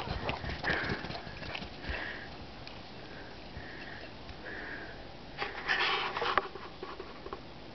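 A series of short, soft sniffs close to the microphone, with a louder rustling burst about five and a half seconds in.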